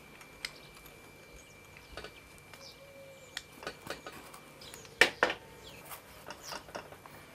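Small handling noises from a taxidermist working a furred hide with wire and pliers: scattered light ticks and rustles, with two sharp metallic clicks close together about five seconds in.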